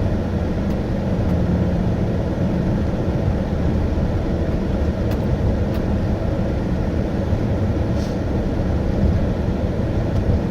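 Steady road and engine noise heard inside the cabin of a car driving along, a low even rumble.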